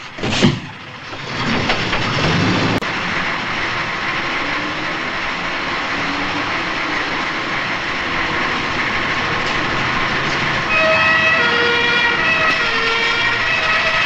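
A dustbin knocks against the back of a Saviem JL 29 refuse truck with a Socima Rotopac body. The truck then runs with a loud, steady noise that gets a little louder about eleven seconds in.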